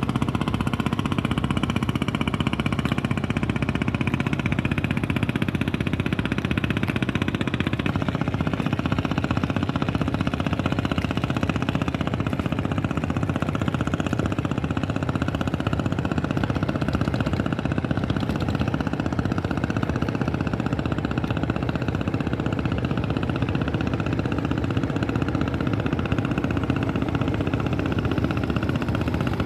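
A boat engine running steadily in a low, even drone, its tone shifting slightly about eight seconds in.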